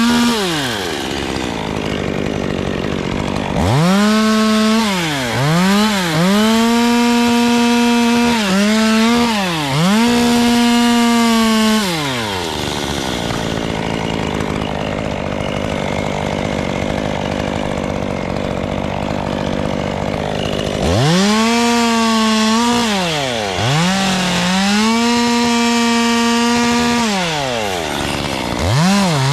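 Two-stroke chainsaw revved to full throttle and cutting into beech wood, its pitch dipping briefly several times as the chain loads in the cut. Midway it drops to idle for several seconds, then is revved up and cuts again, with a short rev near the end.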